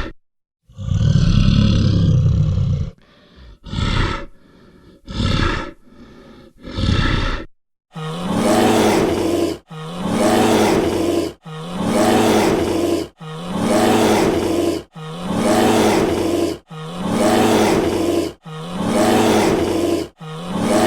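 Brown bear vocalising: a long, deep roar about a second in, three short grunts, then a run of seven evenly spaced, alike calls about every second and a half.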